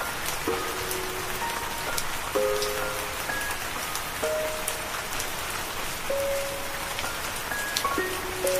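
Steady rain ambience with a slow, sparse melody of soft held notes over it, a new note or pair of notes every second or two.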